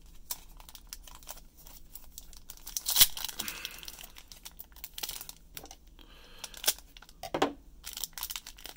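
Foil wrapper of a Panini baseball card pack crinkling and tearing as fingers pick at its crimped seal, with a sharp snap about three seconds in. The seal is stiff and hard to open.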